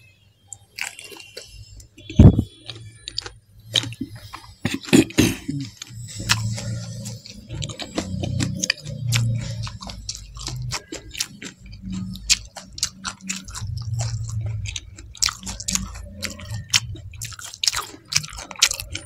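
Close-miked chewing and biting of pani puri, the crisp fried puris filled with spicy water: many short crisp crunches and clicks over a muffled low rumble of chewing with a full mouth. A loud low thump about two seconds in.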